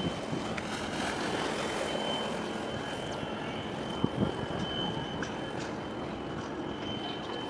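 Low steady rumble of a large ship's engines carrying across harbour water, mixed with wind on the microphone, with a thin steady high whine throughout and a short knock about four seconds in.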